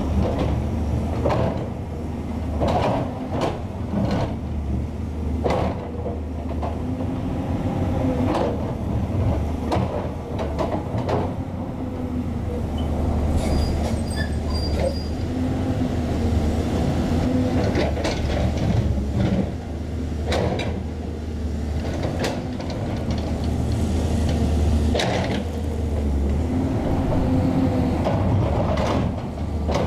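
Hydraulic excavator's diesel engine running under load while its steel bucket scrapes and breaks stone off a rock wall, with repeated clanks and knocks of metal on rock. The engine note swells and eases in spells of a few seconds as the hydraulics take up the load.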